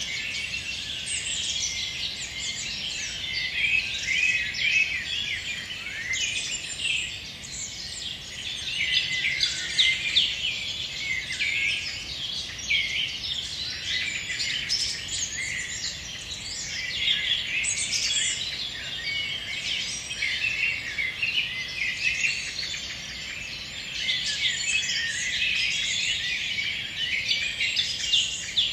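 Dense dusk chorus of many forest songbirds singing at once: overlapping chirps, whistles and trills with no break.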